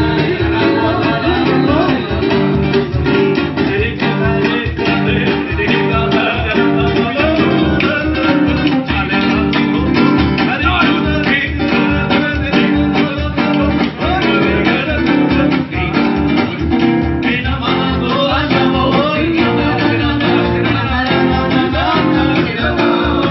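Live Romani folk song: a woman singing over two strummed acoustic guitars, with a cajón and a hand drum keeping a fast, steady beat.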